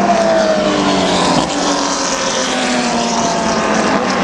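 Race car engines running hard as several cars pass on the circuit, their notes sliding slowly down in pitch, with one brief rising note about a second and a half in.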